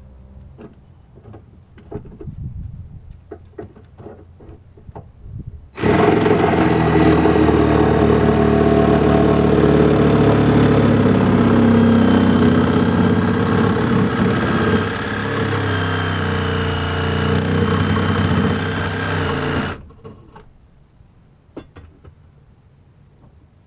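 Light clicks and knocks, then a DeWalt lithium-battery cordless power tool runs loud and steady for about fourteen seconds, starting suddenly about six seconds in and cutting off suddenly. Its level drops a little partway through.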